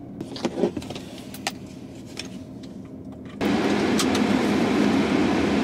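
Seatbelt clicks and rustling inside a car, then about three and a half seconds in a sudden loud, steady rush of noise as the car starts up.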